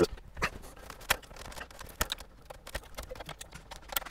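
Plastic wiring-harness connectors clicking and knocking as they are unplugged from the back of a factory car stereo head unit, an irregular run of small clicks.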